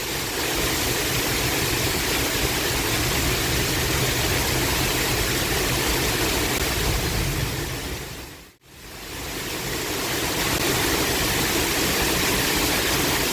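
Heavy rain pouring down in a steady, even rush. The sound fades out to nothing about two-thirds of the way through and fades back in.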